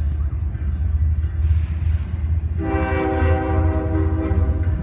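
Train horn sounding one held blast of about two seconds, beginning a little past the middle, over a steady low rumble.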